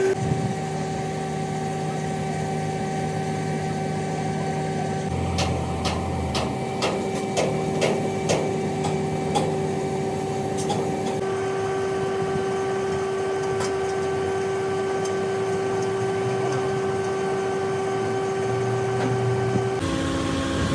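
A steady mechanical hum, with a run of sharp knocks in the middle.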